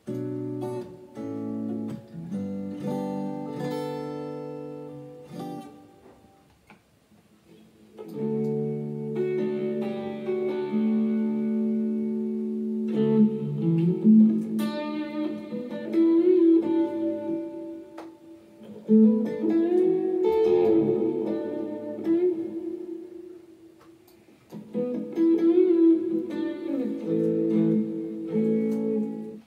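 Guitar played through a Bose S1 Pro portable PA speaker: chords and picked notes ringing out in short phrases, with a brief pause about seven seconds in.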